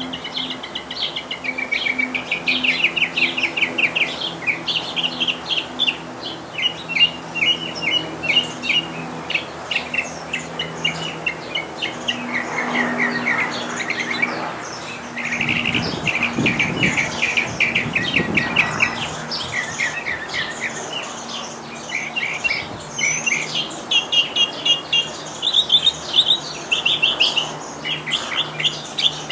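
Northern mockingbird singing: a continuous string of varied phrases, each a quick run of repeated notes, switching to a new phrase every few seconds.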